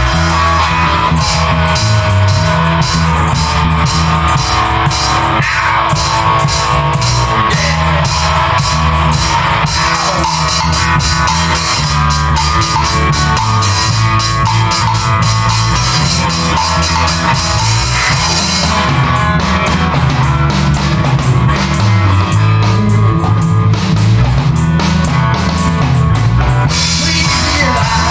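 Rock music playing: a drum kit keeping a steady beat with a bass line and guitar.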